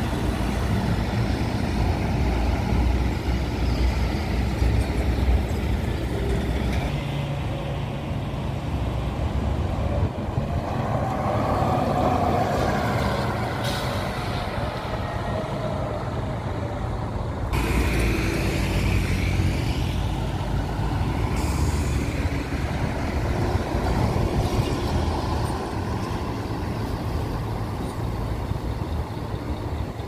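Heavy road traffic: diesel tour buses and trucks driving past, engines running over tyre noise.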